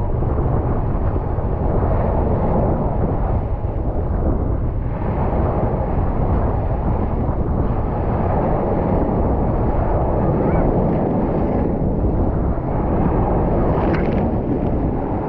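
Mediterranean Sea waves washing in steadily, with wind buffeting the microphone heavily.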